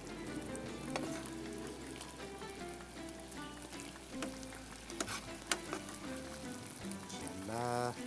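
Stewed meat on the bone being lifted out of a pot on the stove with a metal slotted spoon: a steady sizzling hiss from the pot, with a few sharp clinks of the spoon against the metal. Light background music plays under it.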